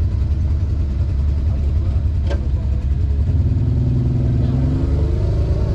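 Off-road vehicle engines idling with a steady low rumble, and a single sharp click a little before halfway. From about halfway, a second engine note comes in and rises slightly.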